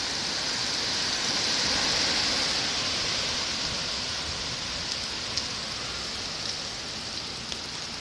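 Heavy rain pouring steadily in a thunderstorm, a dense even hiss that swells a little about two seconds in and eases slightly toward the end, with a few faint drop ticks.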